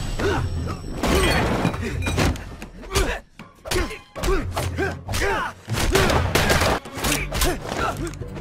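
Film fistfight: a rapid string of punch and body-impact hits, crashes and thuds, with short grunts of effort between them, over a low, steady music score.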